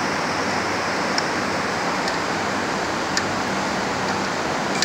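Steady background noise with a faint low hum, and a few light metallic clicks as the packing gland nuts of a multi-stage centrifugal pump are worked with a wrench.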